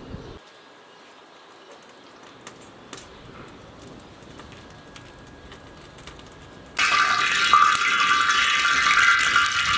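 Hot cooking oil in a wide iron pan over a wood fire, quiet at first with a few faint clicks, then about two-thirds of the way through a sudden loud, steady sizzle as chopped vegetables go into the oil and start frying.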